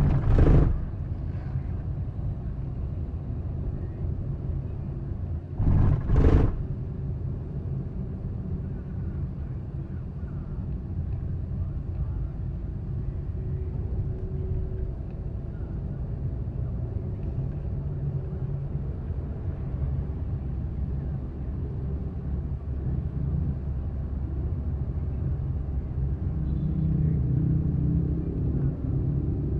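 Steady engine and road rumble from inside the cabin of a Suzuki Ertiga driving slowly through traffic, with two brief loud knocks, one at the very start and one about six seconds in. The rumble grows a little louder near the end.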